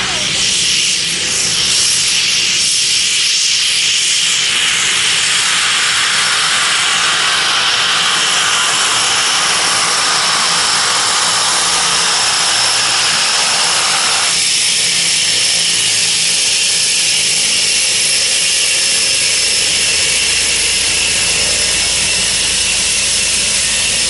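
Cessna Caravan's turboprop engine running steadily as the plane taxis, a steady turbine whine over a rushing hiss.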